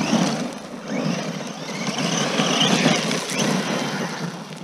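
Redcat TR-MT10E 1/10-scale electric monster truck running on a 2S battery across loose gravel: motor whine and tyre noise in the gravel, fading as it drives away near the end.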